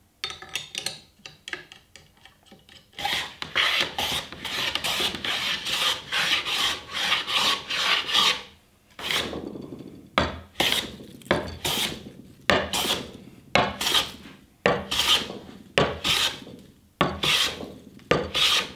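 Low-angle bevel-up hand plane, its iron fitted with a steep bevel for an effective cutting angle of about 70 degrees to avoid tear-out on difficult grain, shaving the face of a partially air-dried Atlantic cedar board. Short light strokes at first, then a few seconds of quick continuous planing, then separate strokes about two a second.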